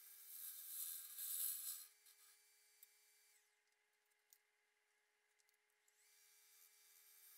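Bowl gouge cutting end-grain cherry on a spinning wood lathe: a hiss of shavings for about two seconds. The lathe's faint motor whine then drops as the lathe is stopped, near silence with a single click, and the whine rises again as the lathe is restarted about six seconds in.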